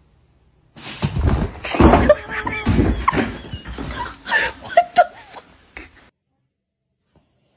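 People laughing and exclaiming without clear words, with a couple of sharp knocks among the laughter. It starts about a second in and cuts off suddenly about six seconds in.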